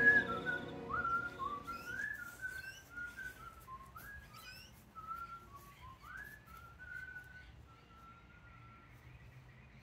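A person whistling a wandering tune of held notes and upward slides, growing fainter and dying away near the end.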